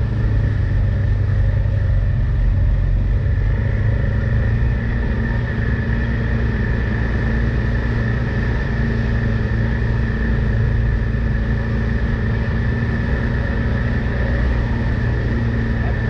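Side-by-side UTV engine running steadily under way, a low drone with a steady high-pitched whine above it.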